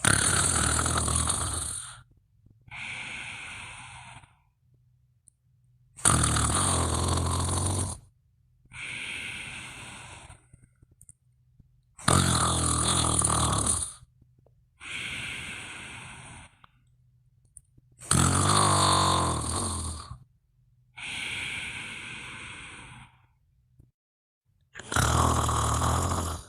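Steady, regular snoring: about every six seconds a loud snore of about two seconds, followed by a softer, breathy exhale. There are five snores and four exhales, with the last snore near the end.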